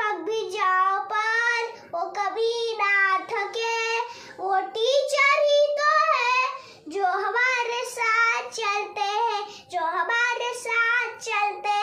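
A young boy singing unaccompanied, in phrases of held, wavering notes with a short breath break about halfway through.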